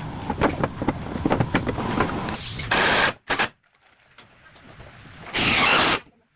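Workshop clatter and knocking, then loud bursts of hissing: one about halfway through and a second lasting under a second near the end, with a quiet gap between.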